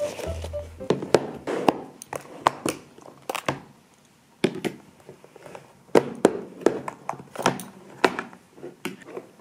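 Plastic snap-lock lunch containers knocking on a hard desk and their lid clips being unclipped, a string of sharp clicks and knocks with a short pause partway through.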